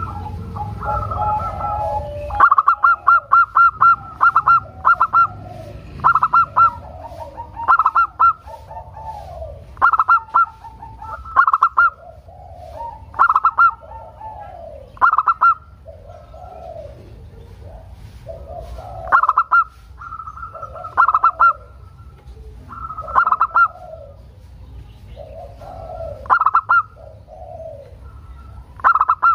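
Zebra dove (perkutut) singing: loud phrases of rapid, stuttering coos repeated about every two seconds, with softer, lower coos between them.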